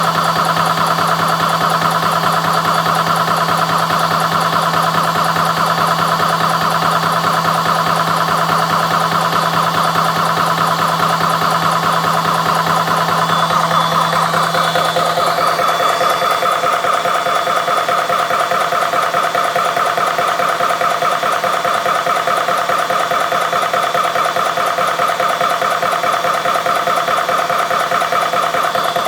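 CS6 Pro portable high-pressure PCP air compressor running steadily with a rapid pulsing chug while it pumps up an air rifle. About halfway through, a low hum drops out and the machine's tone shifts, and it runs on.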